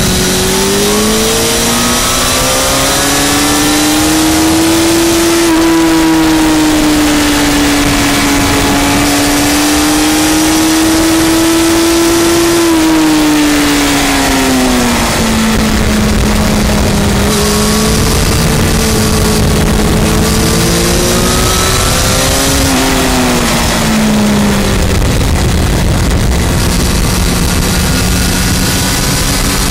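Yamaha R1 inline-four sports bike engine under hard riding, heard from the bike itself with a steady rush of wind. Its note climbs over the first few seconds and holds high, falls away about halfway through, rises briefly, then drops to a lower steady note for the last few seconds.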